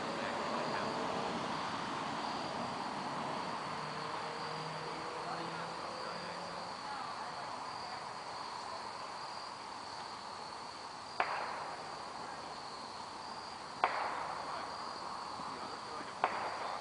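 A steady, high-pitched insect chorus trilling at one pitch, with three sharp knocks in the second half about two and a half seconds apart.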